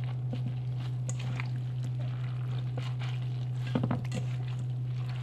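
Hand squeezing and kneading salted shredded red cabbage in a stainless steel bowl: faint wet squishing and crackling as brine is pressed out, with a short louder cluster of squelches about four seconds in. A steady low hum runs underneath.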